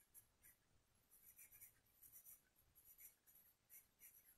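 Faint scratching of a pen writing on a paper textbook page, in short irregular strokes.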